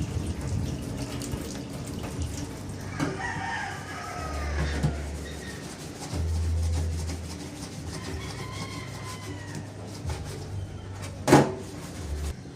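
A rooster crowing twice, in long arching calls, over a low steady hum. A single sharp knock near the end is the loudest sound.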